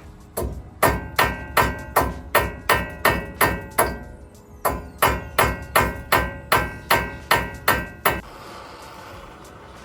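A hammer striking metal in a steady series of about twenty ringing blows, roughly three a second, with a brief pause midway, then stopping about eight seconds in: knocking a seized front wheel hub assembly loose from the steering knuckle.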